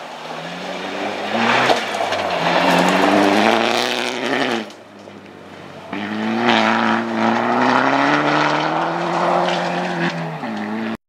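Opel Corsa OPC rally car driven hard on gravel, its engine revving high with the pitch climbing. The sound drops away sharply just before the five-second mark, comes back about a second later in a second high-revving run, dips briefly near the end and then cuts off suddenly.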